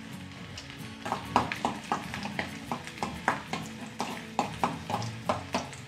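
A steel spoon stirs chopped garlic frying in oil in a metal kadhai. From about a second in it scrapes and clinks against the pan in quick strokes, about three to four a second.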